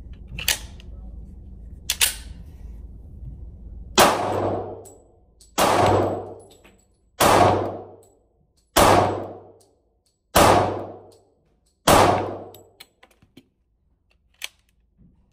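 Smith & Wesson M&P Shield .45 ACP pistol fired six times, about a second and a half apart, each shot echoing in an indoor range; the six rounds empty the flush-fit magazine. Two sharp clicks come before the shots and a few light clicks after them.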